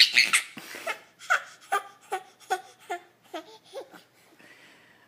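Baby laughing in a string of short, high-pitched bursts, about seven of them at two to three a second, after a louder burst at the start.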